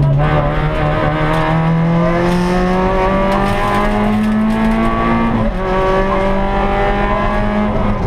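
Rally car's engine heard from inside the cabin under hard acceleration, its pitch climbing steadily, then dropping briefly about five and a half seconds in at a gear change before pulling on again.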